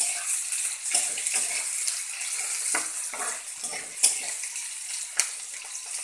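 Sliced onions sizzling in hot oil in a kadhai as they are stirred with a spatula, a steady hiss broken by short clicks of the spatula against the pan, the sharpest about four seconds in and again about five seconds in.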